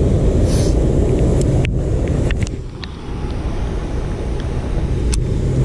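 Loud, steady rushing roar of fast floodwater below a dam, mixed with wind buffeting the microphone, with a few sharp clicks; it eases briefly about halfway.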